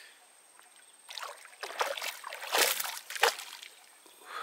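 A fish hooked on light tackle thrashing at the water's surface: about four splashes, starting about a second in, the loudest around the middle, ending with a sharp slap a little past three seconds in.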